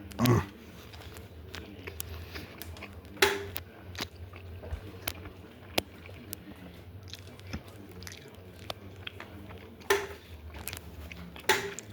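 A person chewing and biting into a burger close to the microphone: wet mouth clicks and smacks, with a few louder bites. A steady low hum runs underneath.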